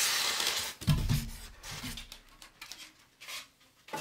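Styrofoam packing block rubbing and scraping against the foam box insert as it is lifted out, then a dull thump about a second in as it is set down, followed by faint handling sounds.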